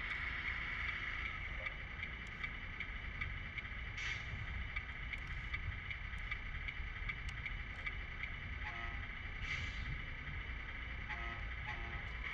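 Steady high-pitched electric whine from a Tamiya Grand Hauler RC semi truck as it creeps forward and stops, over a low wind rumble on the microphone. Two brief hisses come about four and nine and a half seconds in.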